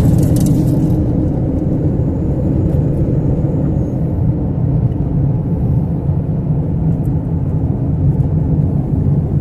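Car driving on a paved road, heard from inside the cabin: a steady low rumble of engine and tyre noise.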